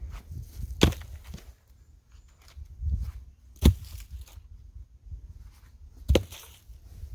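Three sharp knocks about two and a half seconds apart, over a low rumble; no saw engine running.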